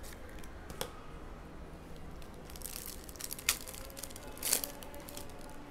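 Foil trading-card pack wrapper crinkling and tearing as it is opened by hand, in short crackling bursts, the loudest about three and a half and four and a half seconds in.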